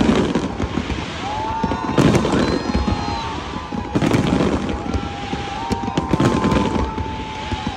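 Aerial fireworks bursting, a loud bang about every two seconds over a continuous rumble and crackle. Long held high tones run through from about a second in.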